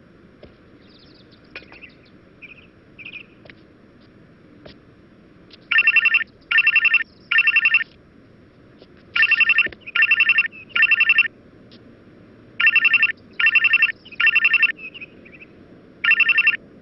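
Telephone-style ringtone: a trilling electronic ring in groups of three short rings, with a pause of about a second between groups. It starts about six seconds in, after faint scattered chirps over a low hiss, and the last ring is cut off at the end.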